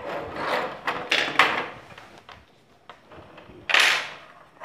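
Knocks and scrapes of an induction cooktop circuit board with its aluminium heat sink being handled on a wooden workbench. There is a cluster of short knocks in the first second and a half, and a louder scrape about three-quarters of the way through.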